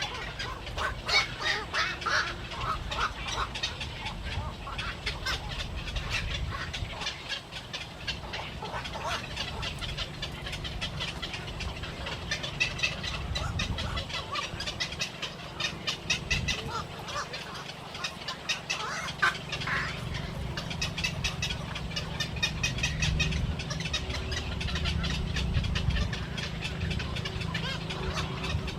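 A flock of ducks calling continually, many short overlapping calls, over a steady low rumble.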